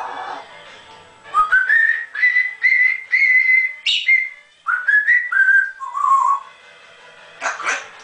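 African grey parrot whistling a run of short, clear notes that step up in pitch and then hold, followed by a few notes stepping down.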